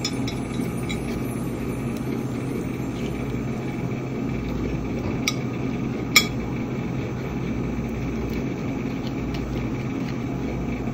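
Metal spoon clinking against a ceramic plate while avocado is scooped, with two sharp clinks about a second apart midway, over a steady low hum.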